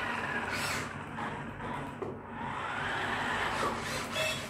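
Electric drive motors of a 4WD twisting RC stunt car whining as it drives on carpet, the pitch rising and falling as it speeds up and slows down.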